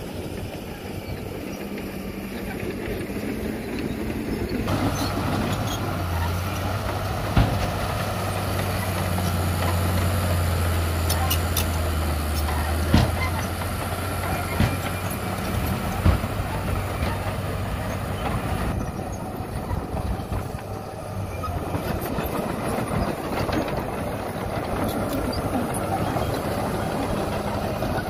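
Diesel earthmoving machinery working: first a dump truck tipping its load, then a crawler bulldozer's engine running with a steady low drone while it pushes soil. A few sharp knocks and clanks stand out, about 7, 13 and 16 seconds in.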